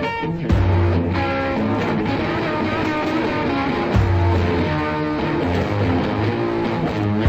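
Rock music with electric guitar, a heavy low note coming in about half a second in and again about four seconds in.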